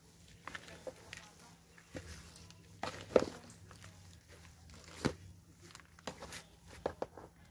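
Hand trowel scooping potting soil and knocking against a pot: irregular scrapes, soft knocks and soil trickling, loudest about three seconds in and again about five seconds in.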